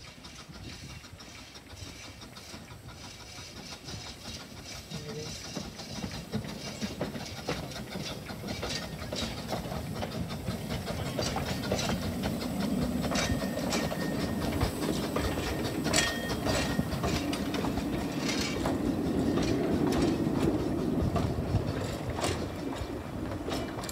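Narrow-gauge steam train on the Talyllyn Railway approaching and running past, growing steadily louder, with its wheels clicking over the rail joints. A brief high squeal comes about two-thirds of the way through.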